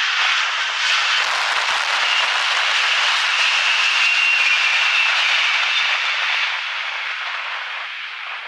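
Antonov An-124's four turbofan engines passing low overhead on landing approach: a loud, steady rushing jet noise with a high whine in the middle, fading away over the last couple of seconds.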